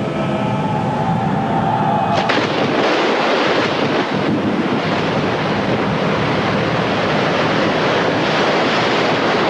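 A sudden loud splash about two seconds in, then the steady rushing of a churning flood river. Sustained music tones sound under the first two seconds, before the splash.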